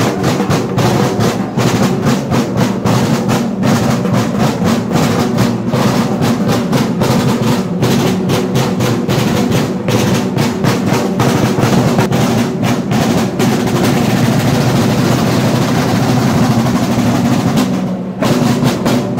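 Music carried by fast, dense drumming: rapid drum strokes and rolls over a steady low tone, breaking off briefly near the end.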